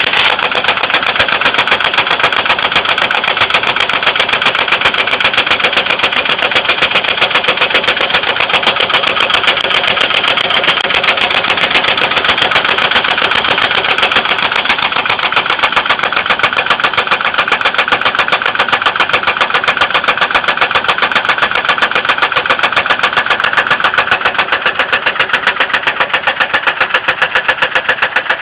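2002 Ford Windstar's 3.8L V6 engine running with a fast, even knocking and tapping that stands out more sharply near the end. The engine's oil is overfilled and a milky light brown, coffee-with-milk colour.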